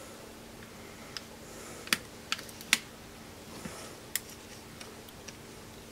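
Small sharp clicks and taps of a phone's clip-on camera bezel being worked loose by hand, about half a dozen scattered clicks, the loudest three coming in the middle.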